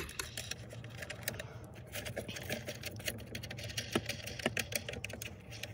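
Quick, irregular small clicks and rattles of hands handling a plastic side-mirror assembly and the socket set beside it, with one sharper click about four seconds in.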